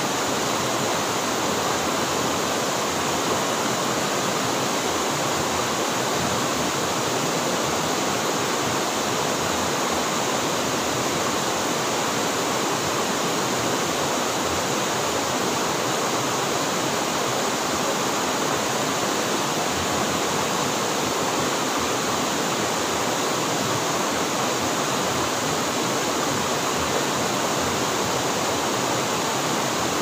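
Small cascade on a rocky stream, white water rushing over the rocks in a steady, unbroken wash.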